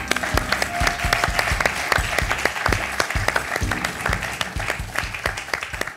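Studio audience applauding, with the show's music playing underneath.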